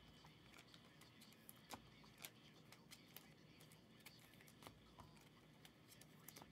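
Near silence with faint, irregular clicks and ticks from trading cards and packs being handled on a table.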